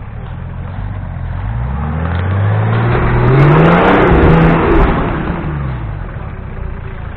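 Short-wheelbase Nissan Patrol 4x4's engine revving under load as it climbs out of a muddy creek and drives past close by. The engine note rises over the first few seconds and peaks about halfway through, with a few sharp clicks at its loudest. It then falls and fades as the truck moves off.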